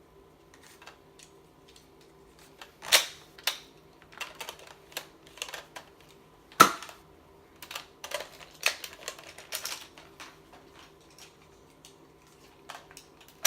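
Irregular sharp plastic clicks and clacks of a Nerf blaster being reloaded, the loudest snap about six and a half seconds in, over a faint steady hum.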